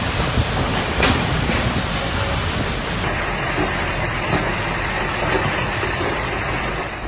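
Steady, loud noise of heavy storm rain, with a single sharp click about a second in and a slight change in the sound about three seconds in.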